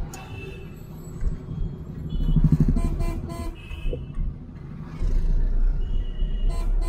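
Cabin noise in a moving 2013 Ford Figo diesel: a low engine and road rumble that swells and eases. Car horns honk briefly a few times.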